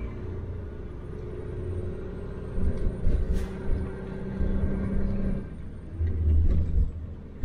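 Ford F-250 Super Duty's 6.7-litre diesel V8 running as the truck drives slowly, with a steady low road rumble that swells louder twice, about three and six seconds in. A brief click sounds about three seconds in.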